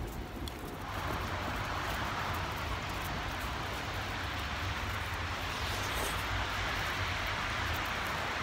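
Road traffic passing: a steady hiss of car tyres that swells about a second in and holds.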